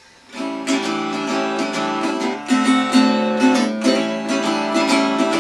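Acoustic guitar strumming a blues accompaniment in a steady, even rhythm of chords. It comes in about a third of a second in, after a brief quiet, with no singing.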